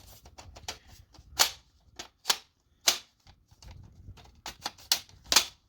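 Plastic paper guides of an inkjet printer's paper cassette being slid and clicked between paper-size settings: an irregular run of sharp plastic clicks and snaps, five of them louder than the rest.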